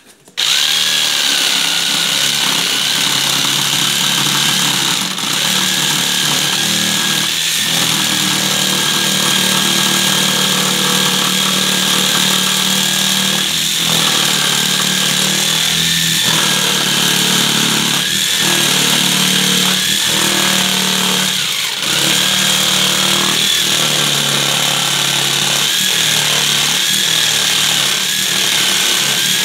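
Electric jigsaw running steadily as its blade saws through the rubber tread of a tire, starting about half a second in, with a slightly wavering motor whine. It eases off briefly twice, about five seconds in and again a little past the middle.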